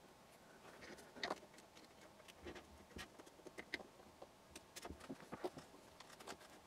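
Faint, scattered clicks and light taps of a steel shaft and 3D-printed parts being handled and fitted together by hand.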